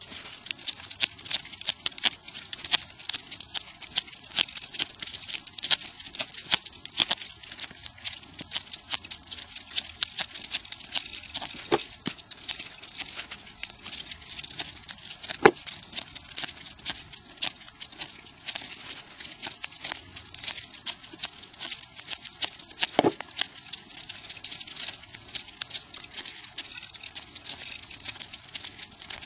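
Folded paper origami units rustling and clicking as they are handled and pushed together, a dense run of rapid crackles with a few louder snaps.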